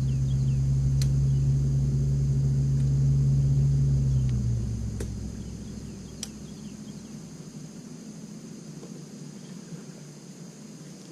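A boat motor runs with a steady low hum, then dies away about four and a half seconds in. After that, a faint steady insect buzz and a few sharp clicks remain.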